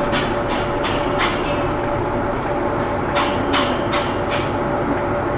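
Inside a city bus: the engine and drivetrain hum steadily, with a steady tone running through it and scattered short clicks and rattles at uneven intervals.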